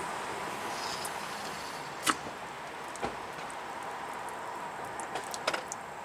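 Light rain falling, a steady even hiss, with a few sharp taps about two, three and five and a half seconds in.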